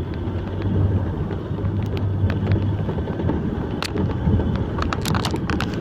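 Logging truck's diesel engine running with a steady low hum, with one sharp knock about four seconds in and a quick cluster of knocks near the end.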